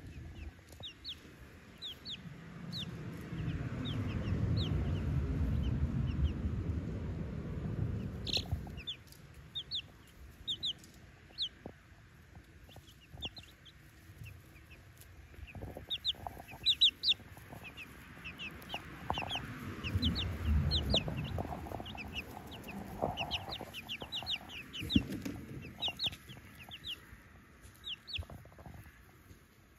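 Three-week-old chicks peeping, many short high cheeps scattered throughout. A low rumble swells and fades twice, in the first third and again about two-thirds in.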